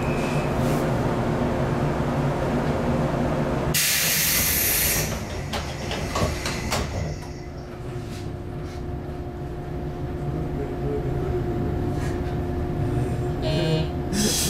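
Inside a standing JR 115 series electric train car: a steady hum and rumble from the car's equipment. About four seconds in, a loud hiss of compressed air lasts about a second, and after it the car is quieter, with the hum carrying on.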